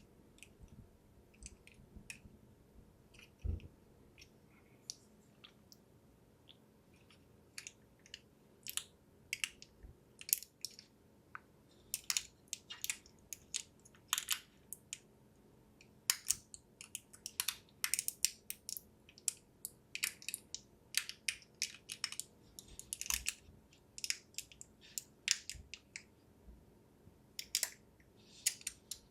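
Thin plastic release film of a Thermal Grizzly PhaseSheet PTM phase-change thermal pad crinkling and crackling as it is handled and peeled, in many short crackles, sparse at first and busier from about eight seconds in.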